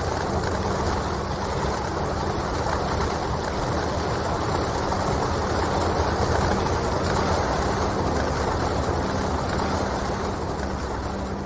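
A steady rushing noise with a low hum underneath.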